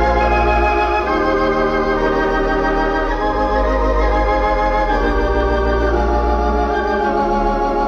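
Wurlitzer theatre pipe organ, a 5-manual, 21-rank studio instrument, playing slow sustained chords over a deep held bass note, with a shimmering, wavering tone.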